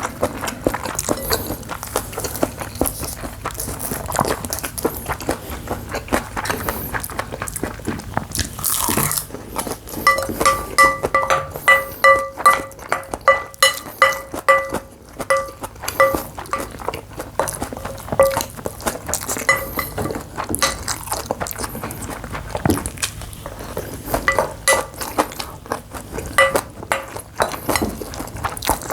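Spoon clinking and scraping against a bowl while eating bibimbap, with chewing and crunching. In the middle comes a run of quick ringing clinks at one steady pitch, about three a second.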